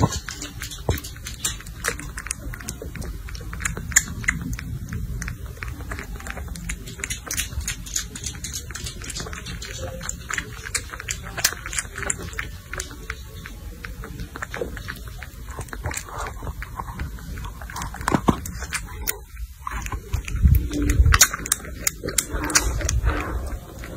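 A young kitten suckling milk from a feeding bottle: a run of quick sucking clicks, with small noises from the kitten now and then.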